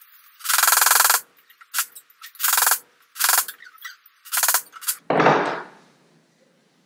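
A hammer knocking skate bearings into a scooter wheel hub: about six short bursts of rapid knocking, with a deeper, heavier knock near the end. The bearings are too tight a fit to press in by hand, and hammering them risks destroying them.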